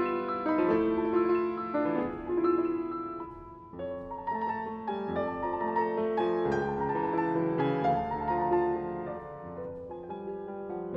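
Solo classical piano on a Steinway & Sons grand. The playing thins out and softens about three to four seconds in, then picks up with a new phrase.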